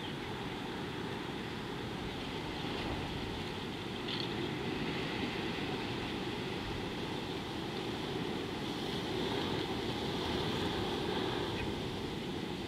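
Wind buffeting an outdoor microphone: a steady low rumbling noise that swells and eases slightly, with no animal calls.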